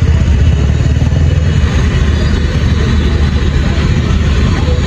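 A running engine's steady low rumble.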